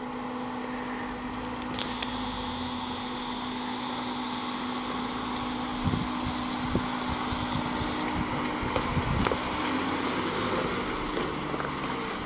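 Jeep Rubicon's engine running slowly and steadily as it crawls down over rock. Wind buffets the microphone from about halfway on.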